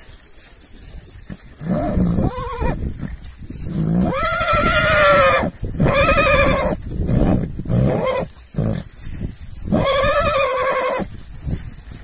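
Horses whinnying: several wavering, pitched calls one after another.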